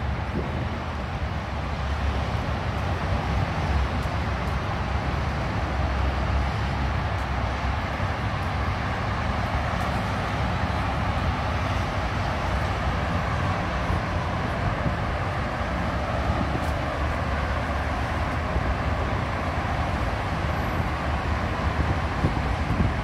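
Steady rumble and hiss of a small panda-shaped ride-on car rolling slowly over brick paving.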